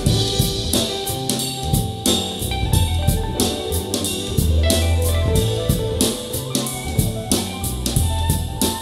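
Jazz-style music with a drum kit, bass and guitar, a recording played back through in-ear monitors for a sound comparison.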